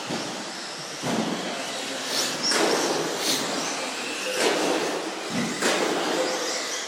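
Electric radio-controlled off-road model cars running on an indoor track: high motor whine and tyre noise, broken by about half a dozen sharp knocks and clatters.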